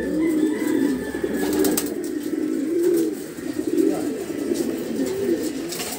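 Racing pigeons cooing, many low coos overlapping without a break.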